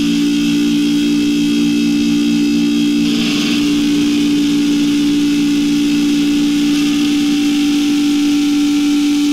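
Amplified, heavily distorted electric guitar and bass holding a steady, sustained drone through the amps, with a slight shift about three seconds in.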